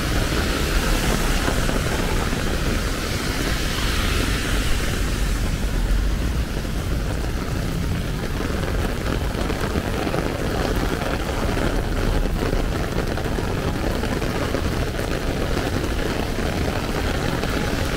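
Heavy rain falling on an umbrella held overhead, a dense, even spatter, over a steady low rumble.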